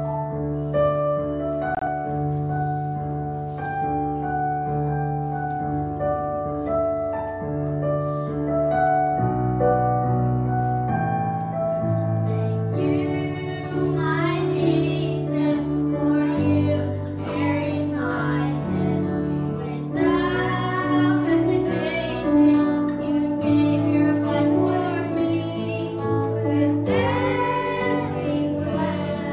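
Children's choir singing a worship song in Chinese with a keyboard-led band. The first thirteen seconds or so are an instrumental keyboard intro, then the children's voices come in together.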